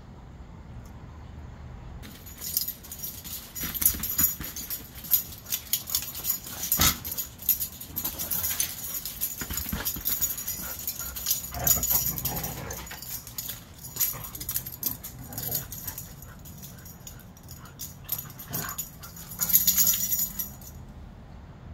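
Huskies playing, with whines and yips over rapid clicking and scuffling. It comes in bursts from about two seconds in until near the end.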